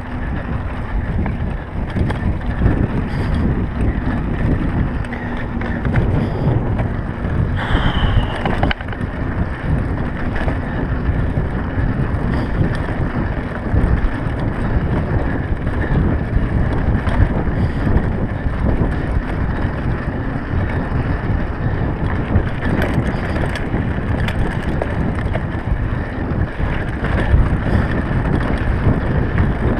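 Wind buffeting the microphone of a camera on a mountain bike as it rides a rough dirt track, with the bike rattling and knocking over the bumps.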